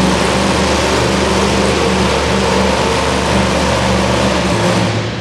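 Supercharged engine of a Willys super modified pulling truck idling at the line, a steady, loud engine note.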